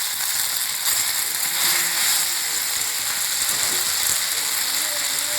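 Hot oil tempering of peanuts, dried red chillies, cumin and curry leaves sizzling steadily in a pan as boiled vermicelli is tipped in and stirred, with a few light scrapes and knocks of the spoon.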